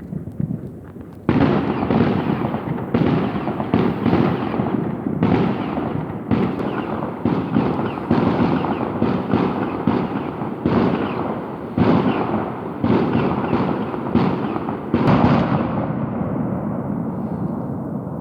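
Fireworks going off: a dense barrage of loud bangs starting about a second in, each trailing a long rolling echo so that they run together. The bangs stop near the end, leaving a fading rumble.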